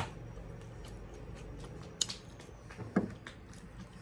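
Close-up eating sounds: chewing chicken with wet mouth clicks and smacks, two of them sharper and louder about two and three seconds in.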